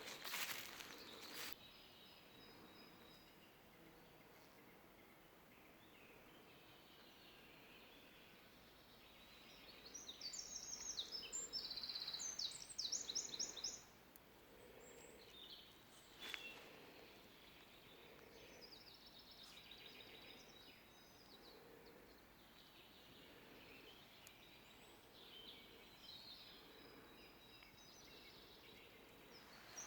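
Songbirds singing in a forest: short phrases of rapid, high trilled notes, loudest about ten to fourteen seconds in, with fainter calls later over a quiet background.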